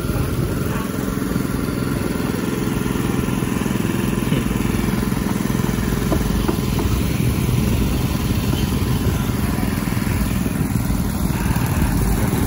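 Small portable petrol-engine water pump running steadily, dewatering the work area behind a jumbo-bag cofferdam.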